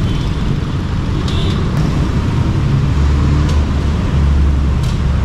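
Honda TMX125 motorcycle's single-cylinder engine running at low speed through a non-stock muffler as the bike rolls in slowly, with a low, steady sound that gets louder for a stretch about three seconds in.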